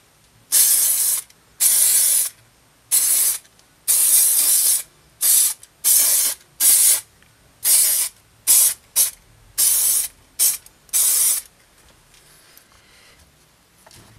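Aerosol can of spray adhesive hissing in about a dozen short bursts of varying length over some eleven seconds, then stopping.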